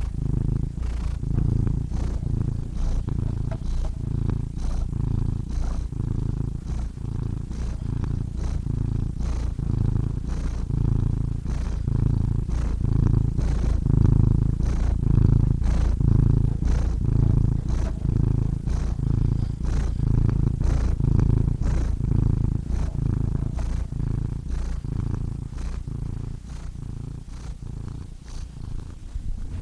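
Domestic cat purring: a continuous low rumble that swells and fades in a regular rhythm about once a second.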